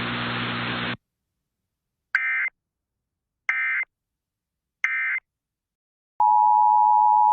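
Three short bursts of EAS SAME digital data tones, the end-of-message code closing a broadcast weather alert, evenly spaced about a second and a half apart. Near the end, the steady two-tone EAS attention signal starts, opening the next alert. Before the bursts, the broadcast's background hiss and hum cuts off about a second in.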